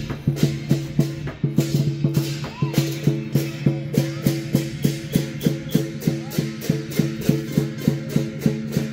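Lion dance percussion: a large drum and cymbals playing a fast, steady beat, about four strikes a second.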